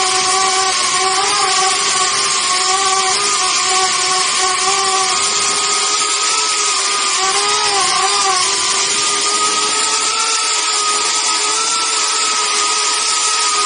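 Small quadcopter's motors and propellers whining steadily, heard up close from a camera mounted on the drone. Several tones waver and cross as the motors change speed, most noticeably about halfway through, over a steady rushing hiss.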